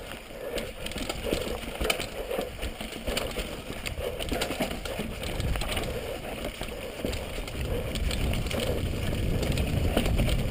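KHS Lucky 7 downhill mountain bike rolling fast over a rocky dirt trail, recorded on a helmet-mounted GoPro: tyres crunching over dirt and stones, with frequent clicks and clatters from the bike. A low rumble grows louder near the end as the trail smooths out and the speed picks up.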